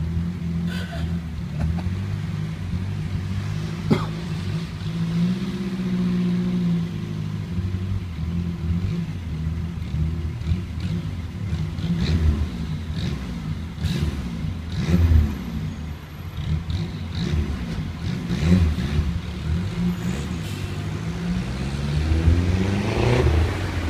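Renault 5 GT Turbo's turbocharged four-cylinder engine idling through its exhaust, with several short throttle blips that raise and drop the revs, the last and longest near the end. A single sharp click about four seconds in.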